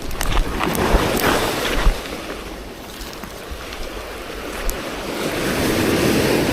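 Sea waves washing up on the shore, swelling loudest near the start and again near the end, with some wind on the microphone.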